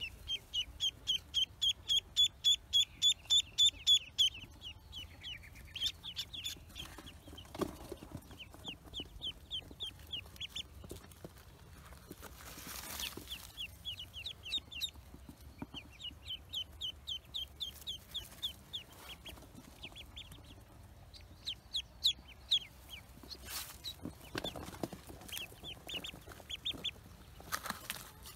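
Ducklings peeping in runs of short, high calls, about four a second. The loudest run comes in the first few seconds, and softer runs go on after it. A few brief rustles of handling are mixed in.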